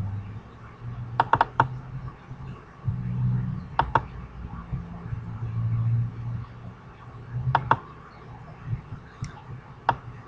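Computer mouse clicking, several clicks in quick pairs like double-clicks, over a low hum.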